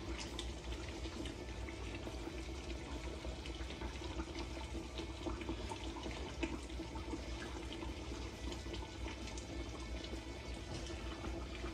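Broth being ladled from the stewing pot over a plate of chicken and rice: a steady watery sound with a low steady hum under it and a few small clinks.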